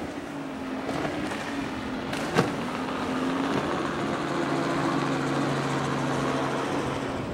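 Outboard motor of a small open boat running at speed, a steady drone over water noise. A single sharp knock about two and a half seconds in.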